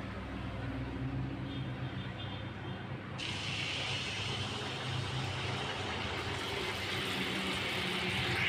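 Tel pitha batter poured from a ladle into hot oil in a kadai: a frying sizzle starts suddenly about three seconds in and grows louder as the pitha fries, over a steady low hum.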